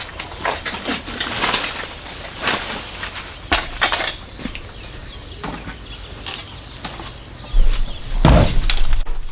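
A series of sharp knocks and clatters, with a louder low rumbling burst near the end.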